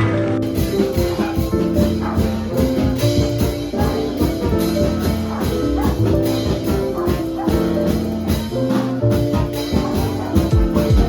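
Background music: an instrumental track with a steady drum beat and sustained chords.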